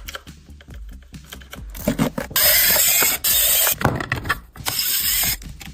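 Small plastic appliance being handled and taken apart: irregular clicks and clatter, with three bursts of harsh scraping noise from about two seconds in.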